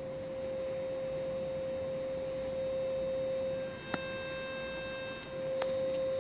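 A steady high-pitched hum holding one pitch throughout, with a few higher tones joining it for about a second and a half midway. Two sharp clicks sound, at about four seconds and near the end.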